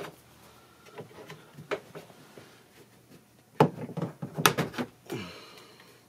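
Plastic interior trim of a 2011 Nissan Versa's liftgate being pulled off by hand, its clips clicking and the panel knocking: two sharp knocks, about halfway through and a second later, among lighter handling clicks.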